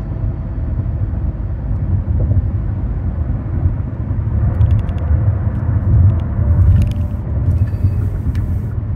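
A car on the move: a steady low rumble of road and engine noise.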